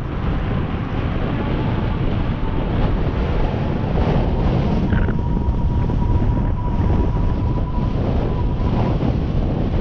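Wind buffeting the microphone on a moving e-bike: a loud, steady rumble. A faint steady whine runs through the middle.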